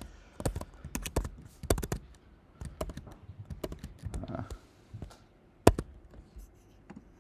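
Typing on a computer keyboard: irregular key clicks and taps, with one sharper tap about three-quarters of the way through.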